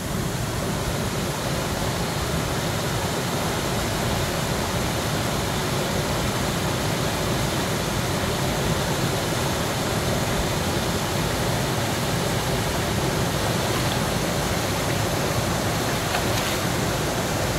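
Shallow rocky river flowing steadily, a constant even rush of moving water.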